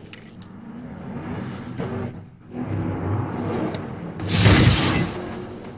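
A car-race film soundtrack played through a single Dolby Atmos height speaker: vehicle sounds and ambience, with a loud burst of noise about four seconds in.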